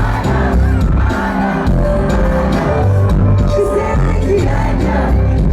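Live concert music played loud through a PA: a heavy bass line and a regular drum beat under sustained melodic notes.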